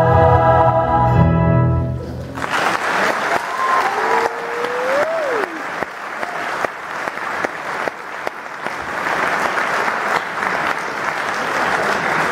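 A choir's final held chord, with accompaniment, cuts off about two seconds in, and audience applause follows. A single whoop rises and falls over the clapping around four seconds in.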